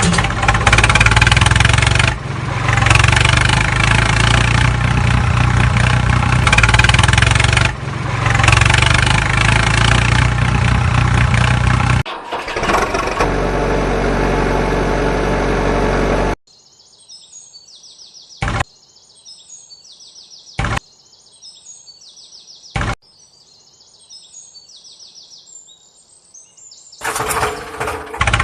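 Loud steady machine running noise with a low hum, changing to a different steady running sound about twelve seconds in; it stops at about sixteen seconds, leaving birds chirping in a repeating pattern with three short clicks, and the loud running resumes near the end.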